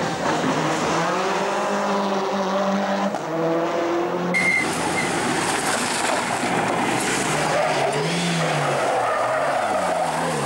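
Rally car's turbocharged four-cylinder engine revving hard, the pitch climbing and dropping again and again as it shifts and brakes, with tyres squealing. The sound changes abruptly about four seconds in.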